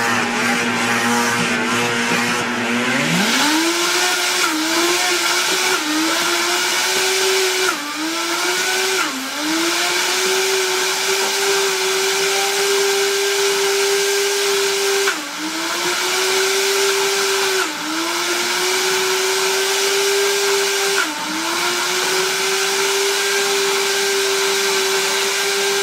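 Oster Versa high-performance blender running on manual, grinding raw hulled sunflower seeds into a thick butter. The motor's pitch steps up about three seconds in, then sags and recovers several times as the blades bog down in the thickening paste.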